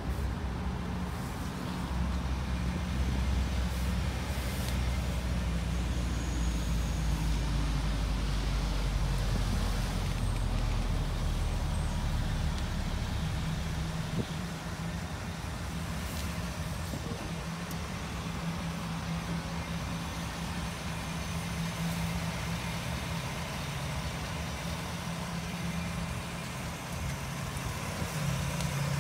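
A 2016 GMC Sierra 1500 Denali's V8 engine idling steadily, heard close to the truck. There is a deeper low rumble over it in the first half, which eases about halfway through.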